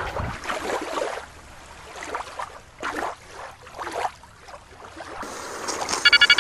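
Water swishing and lapping in a few soft surges. Near the end a quick run of electronic beeps starts.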